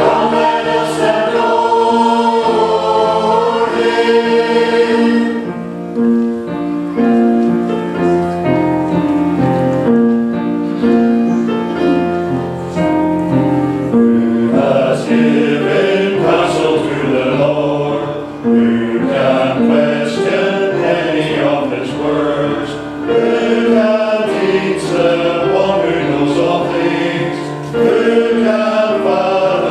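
Church choir singing the introit, many voices together in held, changing chords.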